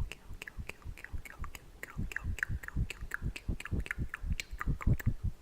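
Close-miked mouth and breath sounds: a rapid, irregular run of wet clicks, each with a low thump as breath hits the microphone, from sitting too close to the mic.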